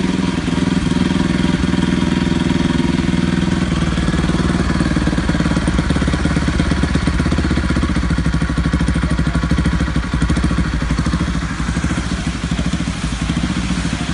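Bajaj Pulsar NS200's single-cylinder four-stroke engine running steadily at idle, with the plug pulled from the hole drilled in its exhaust pipe so the exhaust escapes ahead of the catalytic converter.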